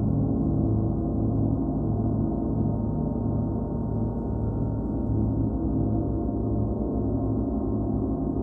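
38-inch Paiste gong sounding in a continuous, sustained wash of dense low overtones with no separate strikes. Its deep hum swells and fades slowly, about one and a half times a second.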